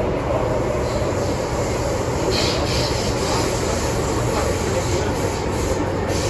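MTR Tsuen Wan Line M-train running at speed, heard from inside the car: a steady rumble of wheels and traction equipment, with brief hisses about two and a half seconds in.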